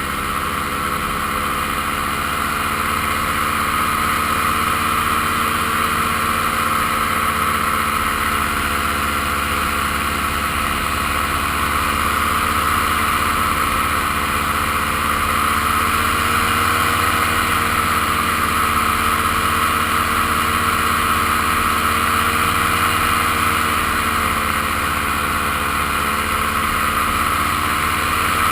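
Paramotor engine and propeller running steadily in flight, its pitch rising and falling slightly.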